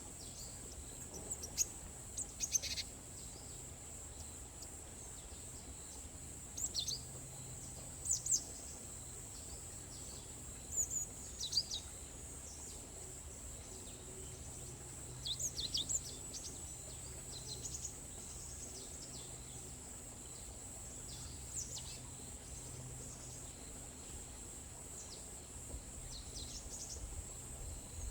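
Forest ambience: small birds giving short, quick, downward-sweeping chirps every few seconds over a steady, high-pitched insect drone.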